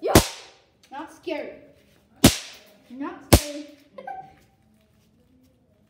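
Throw-down snap pops (bang snaps) cracking on a hard floor: three sharp snaps a second or two apart.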